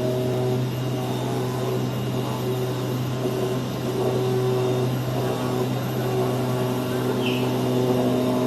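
Paper pattern-cutting machine running: a steady low hum under motor whines of a few different pitches that start and stop every second or so, with a brief high squeak about seven seconds in.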